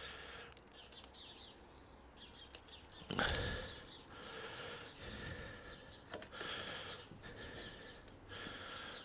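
Quiet handling of hose clamps and pipes: scattered small clicks and a louder thump about three seconds in, with faint bird chirps in the background.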